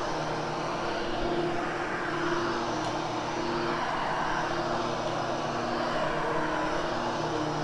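Hoover HushTone upright vacuum cleaner running steadily while post-vacuuming carpet: a constant motor drone with a steady hum over the rush of air.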